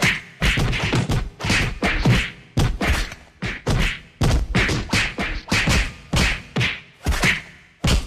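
Punch sound effects: a rapid string of whacking hits, roughly three a second, each a sharp impact that dies away quickly.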